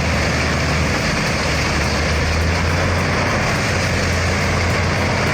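Heavy machinery engine running steadily: a constant low drone with a wash of mechanical noise over it.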